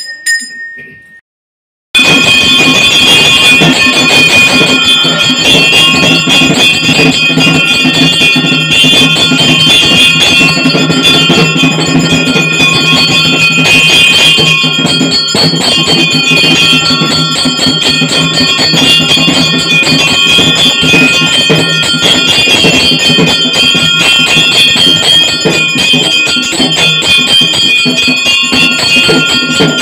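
Bells ringing continuously with fast, dense percussion, the aarti accompaniment to the lamp-waving in a Hindu puja. It starts abruptly about two seconds in, after a moment of silence, and stays loud throughout.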